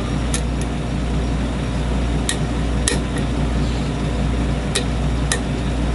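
Small metallic clicks and taps of a lock pick working the pin tumblers of a challenge lock, about seven sharp clicks at uneven spacing, over a steady low hum.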